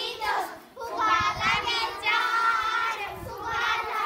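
A group of young girls singing a Gujarati children's action song together, unaccompanied, in short phrases with a brief break a little under a second in.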